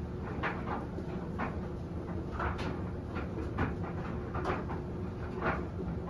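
Front-loading washing machine on a wash cycle: the drum turns with a steady low motor hum, and the wet laundry tumbles and sloshes in irregular swishes about once or twice a second.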